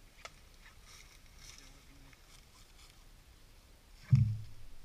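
Faint rustling and small clicks, then a sudden loud low thump about four seconds in that dies away over about half a second.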